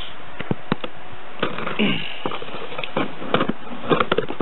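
Irregular sharp clicks and taps of a replica Freddy Krueger glove's metal blades knocking and scraping against a cardboard box, several in quick succession near the end, over a steady hiss.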